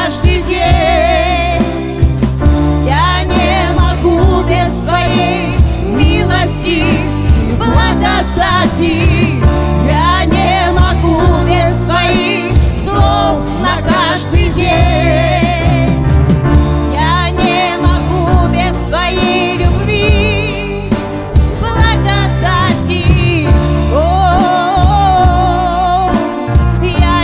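Live worship band playing a song: electric guitar and bass guitar under a sung melody with vibrato.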